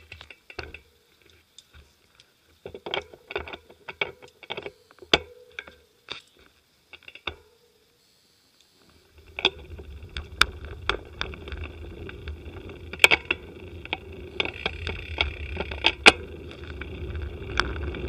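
Road bicycle being ridden, heard through a camera mounted on the bike: scattered clicks and rattles at first, then, from about nine seconds in, a steady low rumble of wind and tyres on the road with sharp clicks over it.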